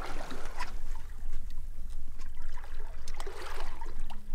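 Water lapping and splashing irregularly against a boat's hull, over a steady low rumble.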